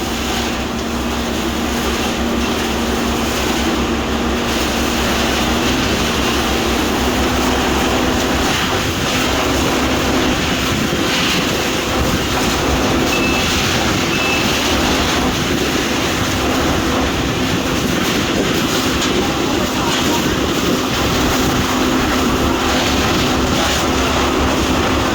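Fire truck's engine and water pump running steadily: a loud, unbroken rumble with a constant hum.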